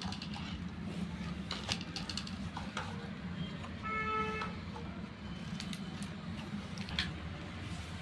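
Remote-control toy rock crawler and toy excavator being handled and set running: scattered plastic clicks and knocks over a low steady hum, with a short electronic beep about four seconds in.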